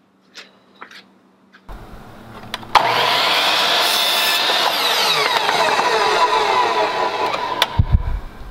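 Electric mitre saw spinning up and cutting through a wooden board, loud from about three seconds in, its whine falling in pitch as the blade winds down. A low thud comes near the end.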